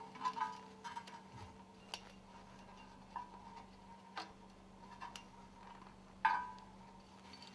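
Faint, sparse metallic clicks and clinks, about one a second, as steel scraper ring segments and their garter spring are handled and hooked together on a work table; a louder clink with a short ring comes about six seconds in. A faint steady hum lies underneath.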